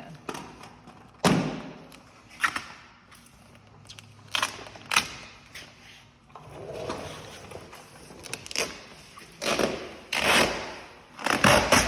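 Hand spray bottle squirting slip solution over the film and bumper in about ten short sprays, a few bunched close together near the end.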